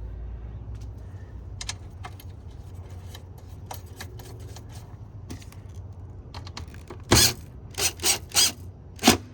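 Hand tools clicking and rattling against metal and plastic while the air box's screws are driven back in, with a few louder, sharp clacks near the end.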